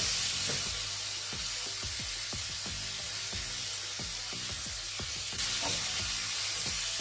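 Sliced button mushrooms sizzling in a hot frying pan with garlic and parsley. The sizzle gets louder about five seconds in as they are stirred with a wooden spatula.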